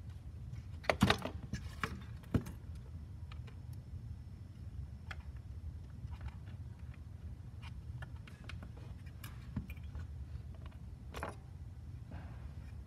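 Plastic housing parts of a ToolKitRC M4Q charger being handled and set against its circuit board: a quick cluster of sharp clacks about a second in, a knock a moment later, then scattered light taps and ticks, with one more clack near the end, over a steady low hum.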